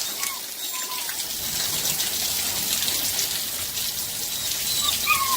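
Steady downpour of rain pattering on surfaces, an even hiss. A few short, falling chirps sound now and then over it.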